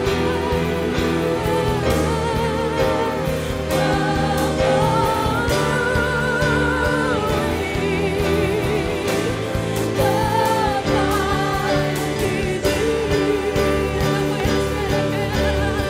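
Live Christian worship song: singers carry a slow melody with vibrato over sustained instrumental backing.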